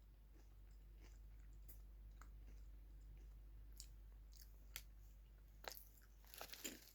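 Faint chewing of crisps, with a few small sharp crunches or clicks in the second half.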